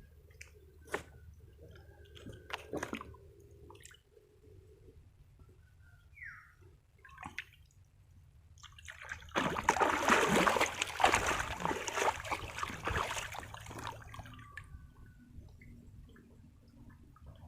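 Water dripping and sloshing, with a loud stretch of splashing from about nine to fourteen seconds in.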